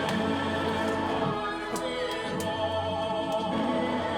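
Music with sustained, choir-like sung notes held at steady pitch.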